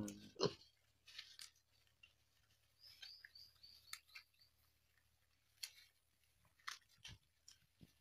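Faint, irregular munching and crunching of small black pigs chewing fresh green leaves.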